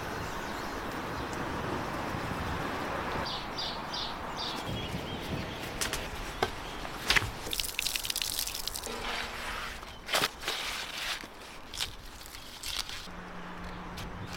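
A gas torch running with a steady hiss as its flame singes a plucked goose, for about the first three seconds. After it come a few short high chirps and then a run of sharp clicks and knocks.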